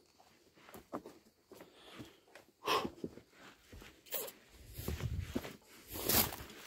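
Footsteps and scuffing on stony ground with clothing rustle: scattered clicks, two louder noisy bursts about three and six seconds in, and a brief low rumble between them.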